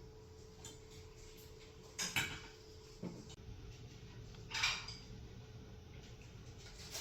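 A few faint clinks and knocks of kitchenware, the loudest about two-thirds of the way through, over a steady low hum.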